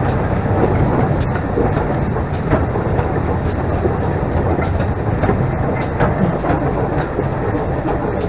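GWR King class four-cylinder 4-6-0 steam locomotive 6023 'King Edward II' running along the line, heard from beside the cab: a steady loud rumble with a sharp click about once a second.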